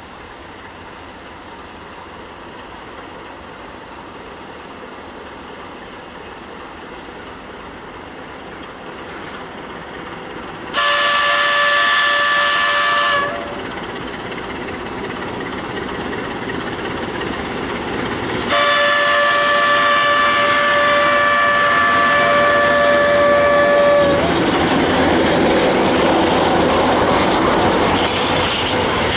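CFR class 60 (060-DA) diesel-electric locomotive hauling a freight train, its engine growing louder as it approaches. It sounds its multi-tone horn twice: a short blast about 11 seconds in and a longer one about 18 seconds in. The locomotive then passes and the freight wagons roll by, their wheels clicking over the rail joints.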